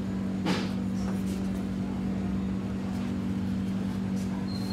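Steady low machine hum, with a brief sharp sound about half a second in and a short thin high tone near the end.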